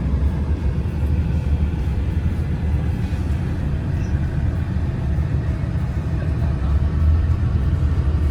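Large vehicle engine running steadily, a continuous low drone.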